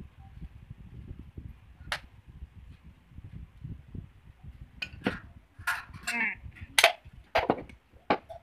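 Sharp metal clicks and knocks from transmission parts and tools being handled on the bench: one near two seconds in, then a loose cluster of them through the second half. A low, uneven rumble of handling noise lies underneath.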